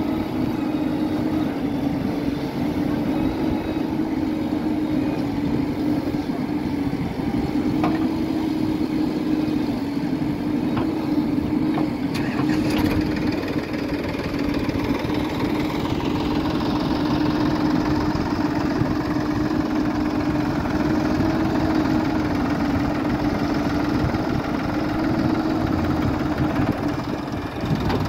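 Diesel engines of a JCB 4DX backhoe loader and a Sonalika DI-47 RX tractor running steadily side by side while the backhoe digs and loads mud into the tractor's trailer, with a few faint knocks around eight and twelve seconds in.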